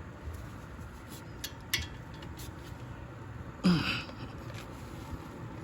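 A few faint, light metallic clicks of hand tools at the brake caliper's fixing bolt as it is being tightened, with one brief grunt-like vocal sound a little past the middle.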